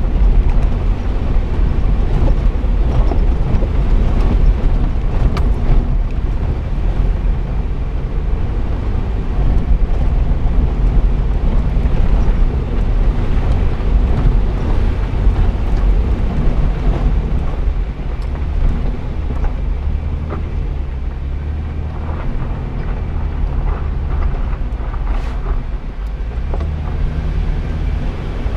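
Jeep driving slowly on a rocky dirt road: the engine runs steadily under tyre and gravel noise, with a few knocks from the stones. Wind buffets the hood-mounted microphone.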